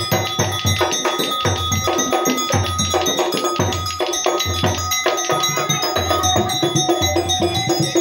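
Percussion music accompanying a topeng monyet monkey show: a steady drum beat about twice a second under ringing metal gong-chime notes.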